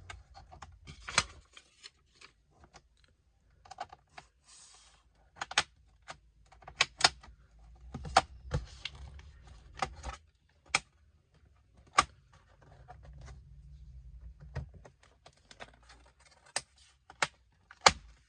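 Plastic snap clips of an ASUS Vivobook 15 P1511CJ laptop's bottom cover popping loose one after another as a pry tool is levered along the case seam. Irregular sharp clicks, with scraping of plastic in between.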